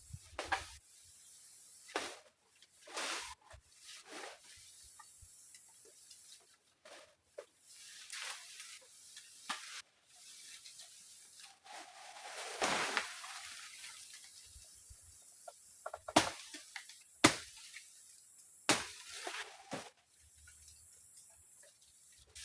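Irregular rustling and scraping from hands working with materials, with a few sharp knocks, the loudest two close together past the middle.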